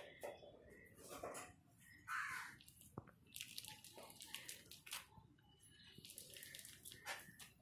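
Faint crinkling and crackling of a thin plastic sheet being peeled off a set slab of milk powder burfi, in scattered soft crackles.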